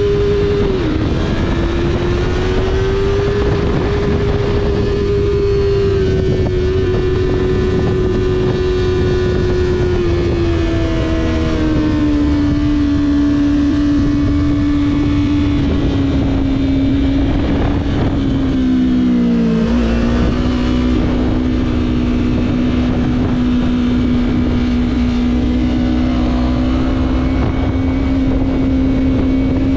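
Sport motorcycle engine running steadily under way, heard from the rider's seat. Its pitch dips briefly about a second in and eases lower around twelve seconds. Near twenty seconds it falls sharply and then holds steady at a lower pitch.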